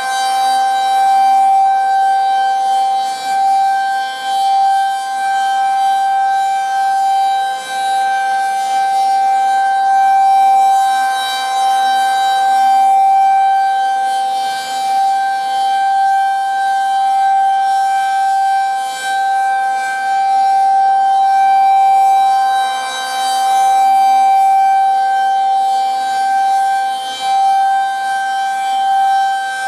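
Federal Signal 2001-SRN rotating outdoor warning siren sounding on a single steady pitch, with no rise or fall. Its loudness swells and dips every few seconds as the rotating head turns toward and away.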